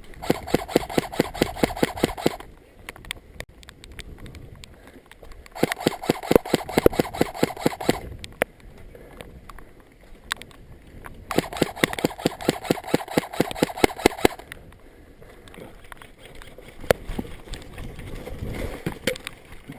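Electric airsoft gun firing three full-auto bursts, each two to three seconds long, at about ten shots a second, with a steady motor and gearbox whine under the shots. A few single clicks follow near the end.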